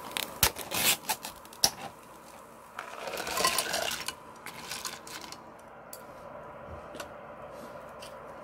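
Ice cubes from a plastic ice cup clinking, then tipped into a saucepan of hot, just-cooked ramen noodles about three seconds in, tumbling and clattering against each other and the pan. A few single clicks follow as the ice settles on the hot noodles.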